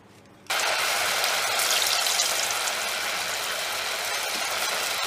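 Murukku dough deep-frying in hot oil: a loud, steady sizzle with crackling that starts suddenly about half a second in.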